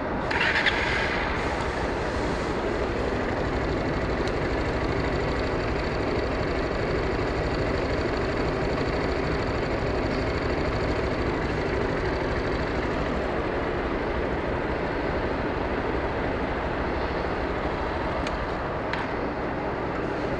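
Vehicle engines running steadily at idle, with a short hiss about half a second in.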